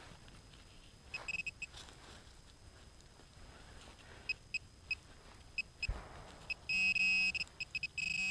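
XP MI-4 pinpointer beeping in short high beeps as its tip is worked through loose soil, the beeps running together into a steady tone about seven seconds in and again near the end as it closes on buried metal. Gloved hands rustle the dirt, with one dull knock about six seconds in.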